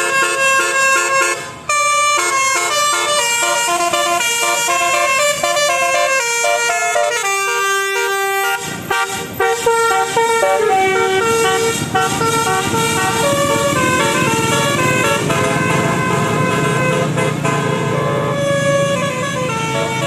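A truck's telolet basuri musical horn playing a fast tune of stepped notes, several horn tones sounding together. About halfway through, a low rumble comes in underneath the tune.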